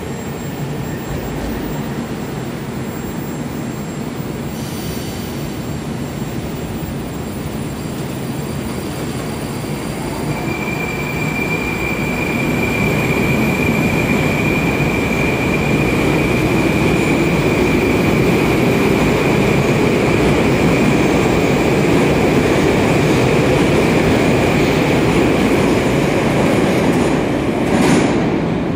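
A Moscow Metro 81-765/766/767 "Moskva" train pulls out of the station, its wheels and running gear rumbling louder as it picks up speed past. A steady high whine comes in about ten seconds in and holds until the train has gone. A brief sharp noise follows near the end.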